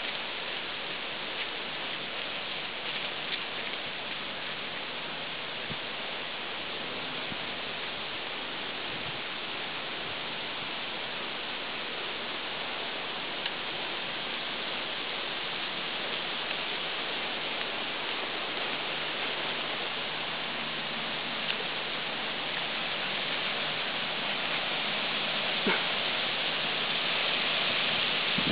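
A steady hiss, growing slightly louder near the end, with a few faint clicks.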